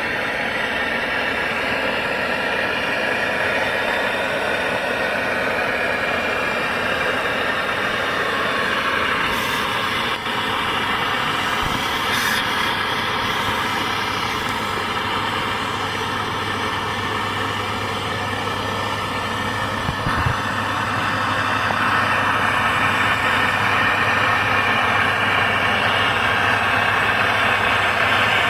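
Brazing torch flame hissing steadily on copper pipe, with a low machine hum joining about halfway through and the whole getting a little louder near the end.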